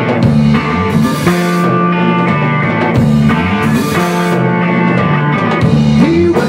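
A rock band playing an instrumental passage: electric guitar, electric bass and a drum kit with cymbals.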